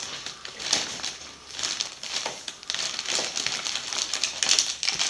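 A bakery bag crinkling and rustling in irregular crackles as a baby grabs and crumples it against her face.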